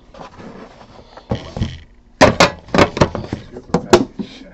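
A run of sharp clicks and knocks as a box of trading cards is handled and opened on a tabletop. The loudest strikes come between about two and four seconds in.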